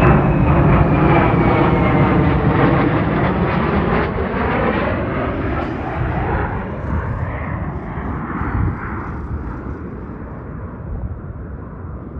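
Fighter jet passing low overhead: loud jet engine noise with a whine that drops in pitch in the first couple of seconds, then fading steadily as the jet moves away.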